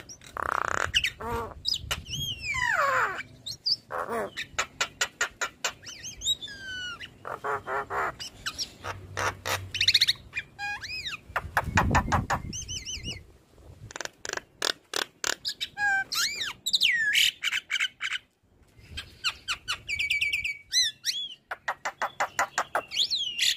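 Javan myna (jalak kebo) singing a long, varied song: fast runs of rattling clicks, sweeping whistles that slide down in pitch, and harsh chattering notes, with a short pause about three-quarters of the way through.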